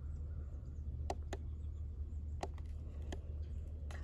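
Push-buttons on a Spartan trail camera's keypad being pressed, about five sharp clicks at uneven intervals as photos are scrolled through, over a steady low rumble.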